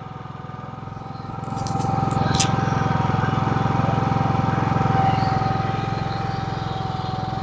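GENMAX GM9000iE gas inverter generator running steadily while it warms up after a cold start on choke, with a thin steady whine over the engine. It gets louder about a second and a half in and eases off a little near the end.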